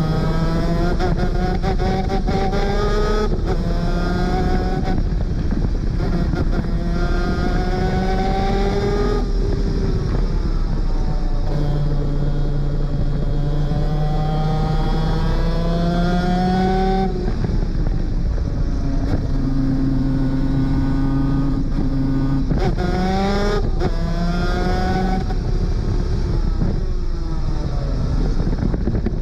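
Superkart 250 engine at racing speed, repeatedly rising in pitch through a gear and dropping back at each shift, with a longer steady stretch midway and falling pitch where it slows, over constant rushing noise.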